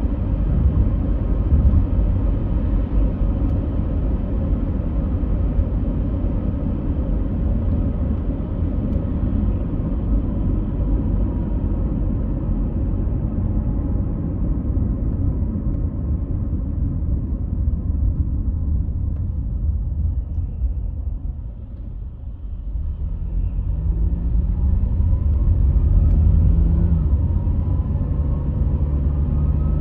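A steady low rumble like a running vehicle. It eases off briefly about two-thirds of the way in, then comes back with a motor hum whose pitch steps and glides up and down.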